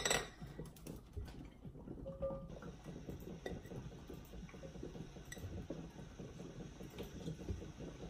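Soft handling sounds of small cucumbers being picked out of a glass bowl and packed into a glass canning jar, with a few faint clinks of glass.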